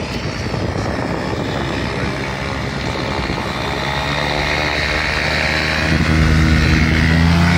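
Light propeller aircraft's engine running: a rushing noise with a steady engine hum that grows louder through the second half.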